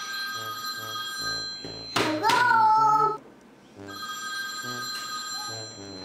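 Telephone ringing in two rings of about two seconds each, with a pause between them. In the pause a child gives a loud, short cry.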